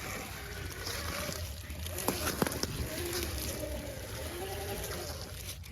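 Redcat Vertex 6 1/6-scale RC rock crawler being driven: its electric motor and drivetrain whine in short spurts that rise and fall with the throttle. A couple of sharp knocks come about two seconds in.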